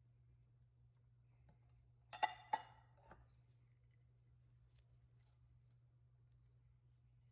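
A few sharp, ringing clinks of kitchenware knocking together about two seconds in, two of them loudest, then a faint rustle; otherwise near silence.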